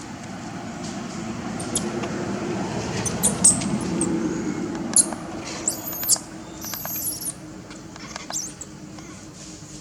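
A few short, very high-pitched squeaks from a baby monkey, mostly in the second half, with some sharp clicks. Under them a low rumble swells and fades away.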